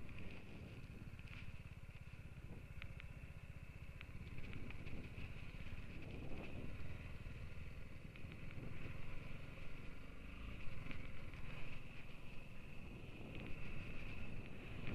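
BMW G 310 GS's single-cylinder engine running at low speed as the motorcycle rides off the tarmac onto loose sandy dirt, with scattered light clicks over it.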